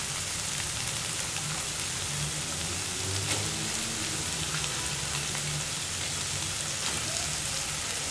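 Onion-tomato masala frying in a non-stick pan as cauliflower florets are tipped in, a steady sizzle throughout.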